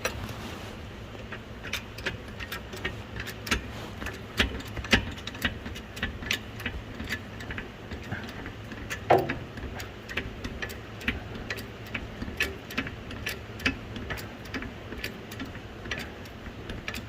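Hydraulic garage jack being pumped under a Birkin Seven, its handle clicking about twice a second as the car is raised. About nine seconds in there is one louder short squeak that falls in pitch.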